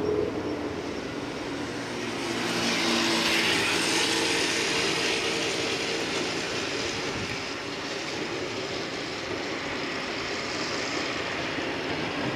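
A passing vehicle: a broad rushing noise that swells about two seconds in and slowly fades away.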